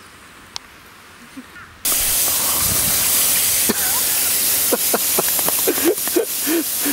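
A loud, steady hiss starts suddenly about two seconds in. Over it come short splashing and squelching sounds as a Doberman puppy paws in a pot of water and wet compost.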